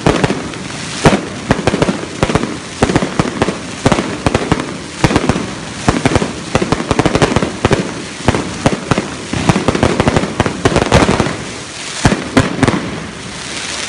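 Aerial fireworks going off in a rapid, continuous barrage: loud bangs several a second, mixed with crackling bursts.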